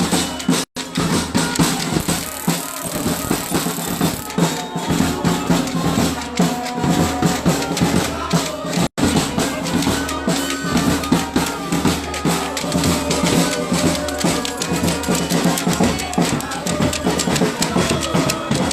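Percussion music with drums and shaken rattles playing a dense, continuous beat. The sound cuts out briefly twice, about a second in and again about nine seconds in.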